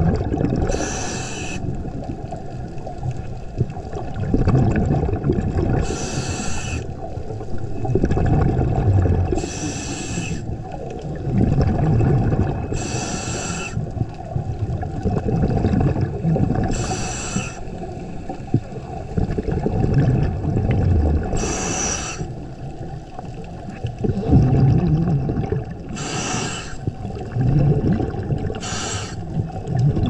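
Scuba diver breathing through a regulator underwater: a short hiss on each inhale, about every four seconds, and a low bubbling rumble of exhaled air between breaths.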